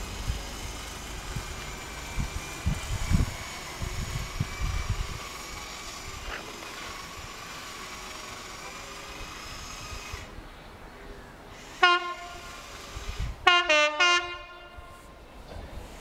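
Diesel freight locomotive's horn sounding as the train approaches: one short blast, then a longer run of two-tone notes about a second and a half later.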